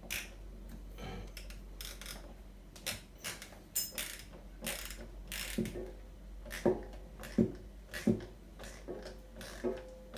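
A 14mm socket wrench screwing a new quarter-turn ceramic disc cartridge into a kitchen mixer tap: a run of metal clicks and knocks, settling into a fairly regular click with a short ring about every three-quarters of a second in the second half as it is tightened.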